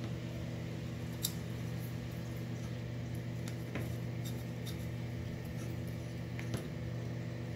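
A few faint clicks and taps of a carbon-fibre quadcopter frame and a hex driver being handled as the frame is screwed together, over a steady low hum.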